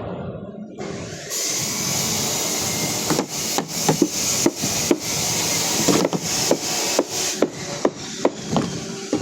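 Carpentry on wood with hand tools: a steady rasping with sharp knocks about twice a second from about three seconds in.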